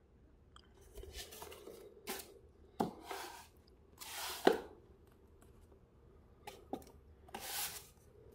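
Handling noise from a thin plastic curved monitor being turned over by hand against a foam packing tray: scraping and rustling with a few sharp knocks. The loudest knock comes about four and a half seconds in.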